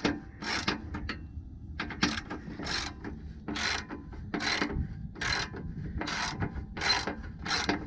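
Socket ratchet wrench clicking in repeated strokes, about one every three-quarters of a second, as the handle is swung back and forth on a bolt. The bolt will not come off because something beneath it turns along with it.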